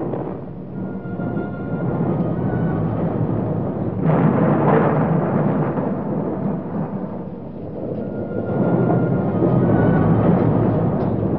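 Deep rolling rumble on an old film soundtrack. It swells up about four seconds in, eases off, then swells again after eight seconds, with faint held music tones above it.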